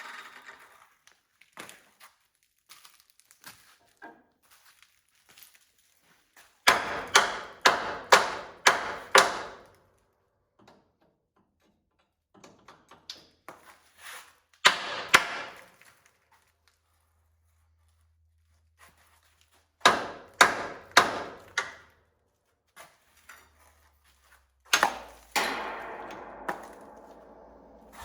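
Groups of sharp, ringing knocks, several strikes close together with quiet pauses between the groups, like metal being struck.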